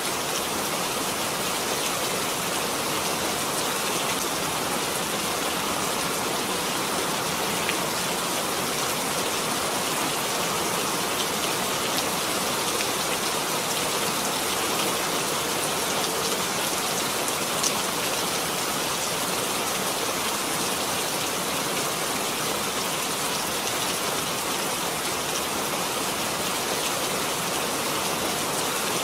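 Steady rain falling, an even, unbroken hiss of drops with one sharper tick a little past the middle.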